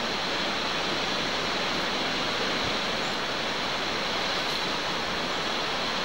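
Steady rushing of strong wind and choppy lake waves breaking with white water along the shore.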